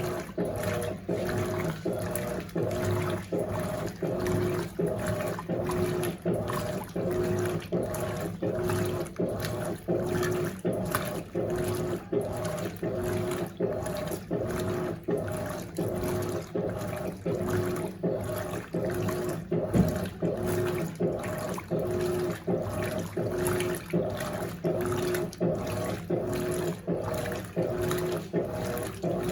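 Top-loading washing machine agitating on turbo at a high water level: its 1/4 hp WEG motor hums and its agitator churns the water and clothes back and forth in a quick, even rhythm.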